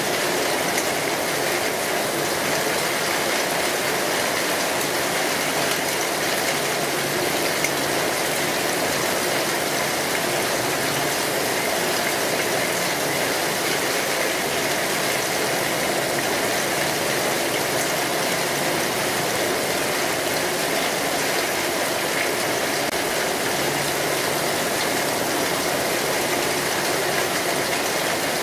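Steady rain falling on a street: an even, unbroken hiss.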